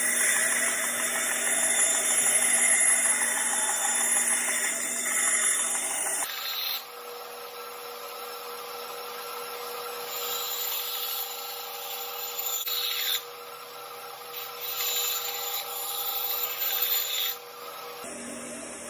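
Bench bandsaw running with a metal-cutting blade, grinding through small pieces of stainless steel plate. The cutting is loudest in the first six seconds, then drops to the saw's running noise, with two more louder spells of cutting later on.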